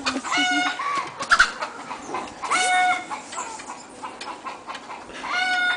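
A chicken squawking as it is chased: three loud, held squawks about half a second each, evenly spaced across a few seconds.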